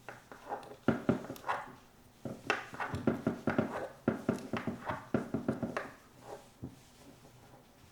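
A small hex key turning a screw into the toe-pick mount of an off-ice skate, making quick runs of clicks and scrapes of metal on metal that stop about six seconds in.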